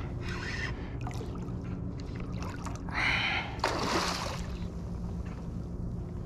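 A hooked drum thrashes and splashes at the surface beside a kayak about three and a half seconds in. It is preceded by short whirring bursts from the spinning reel as the fish is fought in.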